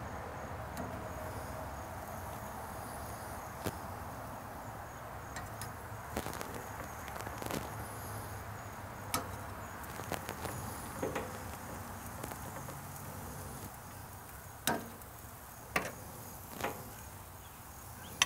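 Metal tongs clicking and tapping against a charcoal grill's steel grate as red onion slices are laid on it: about ten short, irregular clicks, the loudest near the end, over a steady faint hiss.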